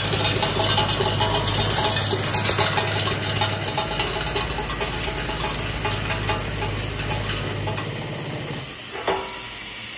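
Screw and bonded washer assembly machine running: rapid, busy clicking of parts moving through its rotary dial and feed tooling over a steady hum and hiss. Near the end the hum stops, there is a single knock, and a steady hiss carries on.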